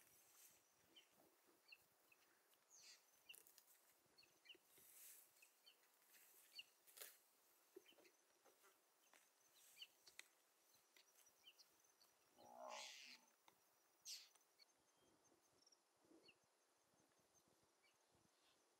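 Near-silent open grassland with faint, scattered short bird chirps, and one brief, louder animal call past the middle.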